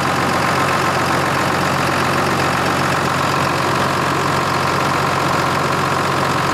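John Deere 6068 six-cylinder diesel engine idling steadily. The engine has blow-by.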